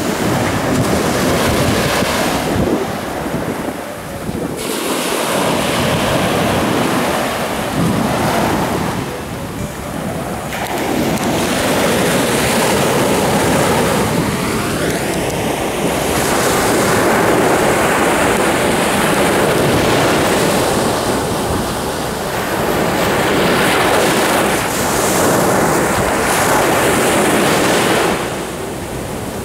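Sea surf: waves breaking and washing up the beach, the rush swelling and easing every few seconds.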